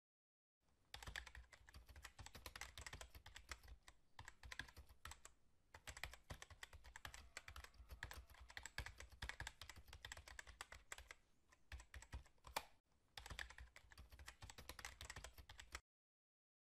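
Rapid typing on a keyboard: a quick stream of keystrokes with two short pauses, starting about half a second in and stopping about a second before the end.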